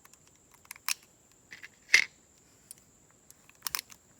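A few light metallic clicks and ticks from a Smith & Wesson CSX pistol being handled, the loudest about two seconds in and a quick cluster near the end.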